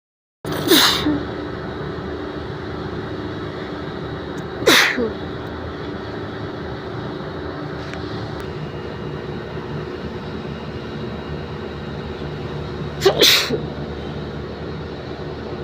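A person sneezing three times: about a second in, near five seconds, and near thirteen seconds, the last in two quick bursts. A steady background hum runs underneath.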